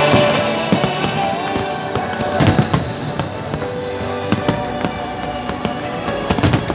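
Fireworks going off in a run of sharp bangs, heaviest about two and a half seconds in and again near the end, with music playing along.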